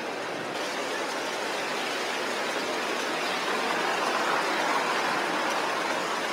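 Heavy rain pouring down on a street as a pickup truck drives past on the wet road, a steady hiss that grows a little louder about four seconds in as the truck goes by.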